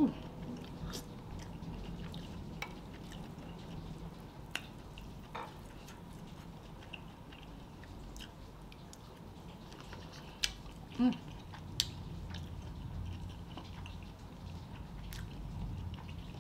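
Close-up mouth sounds of a person eating a sausage: quiet wet chewing with scattered small clicks and smacks, and a few sharper snaps a little after the middle.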